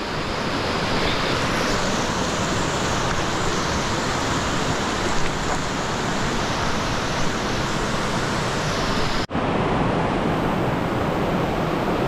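Steady rush of a rocky mountain stream flowing fast over stones, broken by a split-second gap about nine seconds in.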